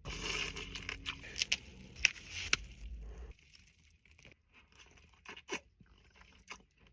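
Snow crab shell being cracked and pulled apart: crunching and tearing with sharp snaps for about three seconds, then scattered small clicks.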